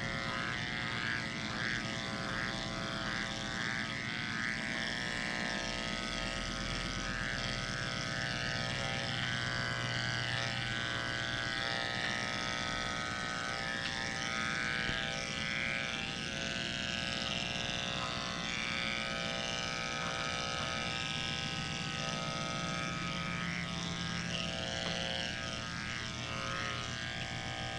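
Electric dog-grooming clippers running with a steady buzzing hum as they shave through a matted coat.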